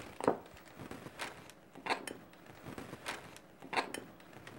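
A brown paper sack being handled over the chicken, with a few brief rustles and soft knocks as raw chicken pieces are put into the bag of flour.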